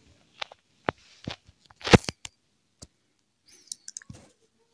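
A scattering of short clicks and small knocks with quiet between them, the sharpest about two seconds in.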